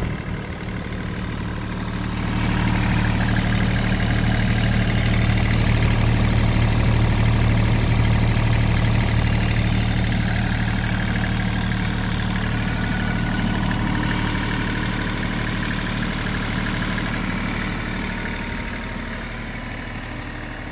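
IHI mini excavator's diesel engine running steadily. It gets louder about two seconds in, then eases off gradually toward the end.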